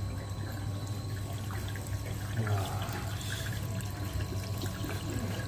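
Steady trickling of water in a doctor-fish foot-bath tank, with small drips and splashes over a low steady hum.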